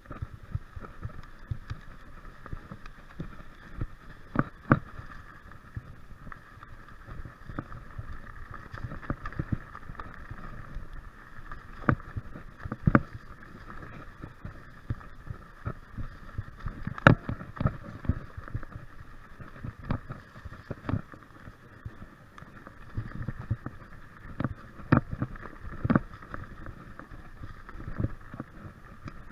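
Electric mountain bike riding fast over a dry, leaf-covered dirt trail: a constant rumble and rattle of tyres and frame on the rough ground, with irregular sharp knocks as the bike jolts over bumps and roots.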